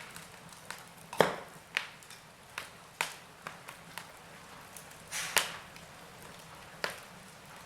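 Logs burning in a fireplace, crackling with irregular sharp pops and snaps over a faint hiss. The loudest pops come about a second in and again after five seconds.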